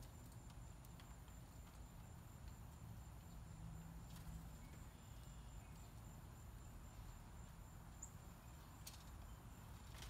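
Near silence: faint outdoor ambience with a low steady rumble, a thin high steady whine, and a few faint clicks.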